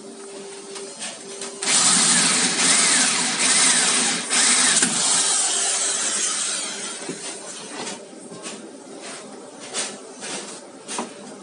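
Bosch electric drill running with a steady hum, then about two seconds in biting hard into a painted metal panel with a loud, harsh cutting noise for about five seconds before easing off and stopping. A few clicks and knocks follow as the drill is handled.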